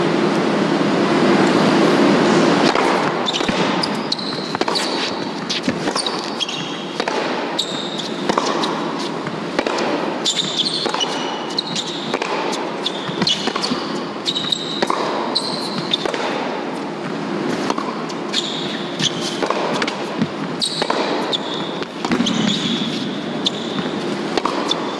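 Tennis point on an indoor hard court: the ball bounced before the serve, then racket strikes and ball bounces as sharp repeated clicks, with short high squeaks of shoes on the court. A steady rush of crowd noise fills the first few seconds, then fades.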